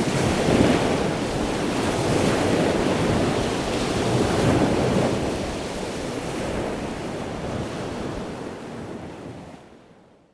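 Waves washing on a shore with wind buffeting the microphone, swelling and easing, then fading out near the end.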